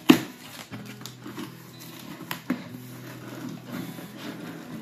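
Corrugated cardboard shipping box being opened by hand: flaps bent back and rubbing against each other. A sharp knock comes just after the start and another about two and a half seconds in.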